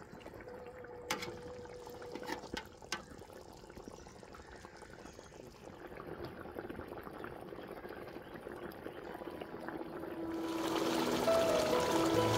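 A metal ladle clinks a few times against an aluminium pot and stirs simmering beef broth, with liquid sloshing and bubbling. Music comes in near the end.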